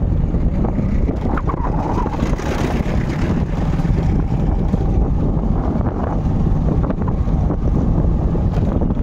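Loud, steady wind rumble buffeting the phone's microphone from a moving vehicle, with the vehicle running underneath.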